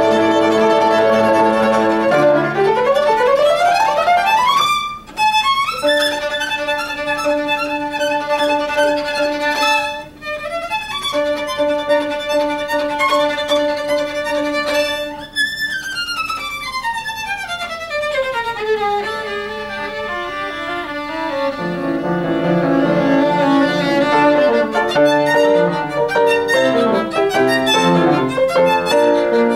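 Violin playing a fast, stormy passage with piano accompaniment. A rising run of notes comes early on, then long held notes over quick figures, a long falling run about halfway through, and busy, lower passagework near the end.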